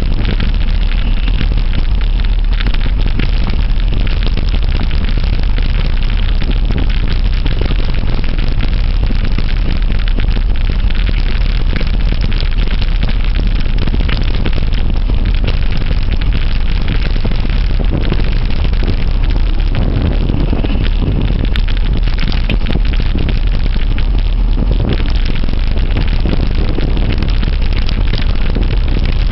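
Heavy wind buffeting on the microphone of a camera riding on a mountain bike, with steady rattling and crackling as the bike rolls over the rough trail.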